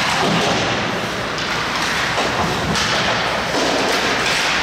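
Ice hockey game noise in a rink: a steady din with several sharp knocks against the boards and glass.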